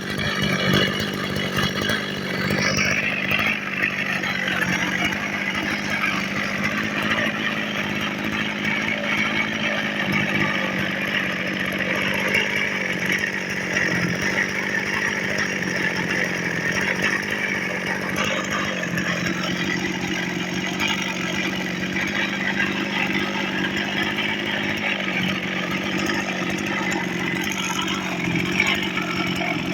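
Zenoah TR2611 brush cutter's small two-stroke engine running steadily on its own, with the strange abnormal noise that marks it as a faulty unit.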